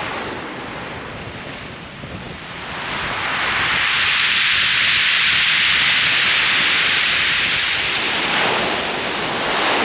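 A wave breaking and washing over the shingle of Chesil Beach: a hissing rush that builds about three seconds in, stays loud for several seconds, eases, then starts to swell again near the end.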